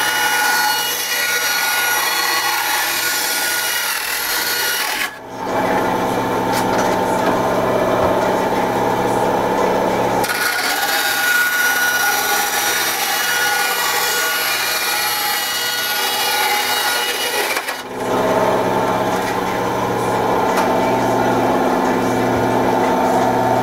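Ryobi benchtop bandsaw running and cutting Kydex thermoplastic sheet, the blade rasping steadily through the plastic over the motor hum. The sound drops out briefly twice, about five seconds in and again near eighteen seconds.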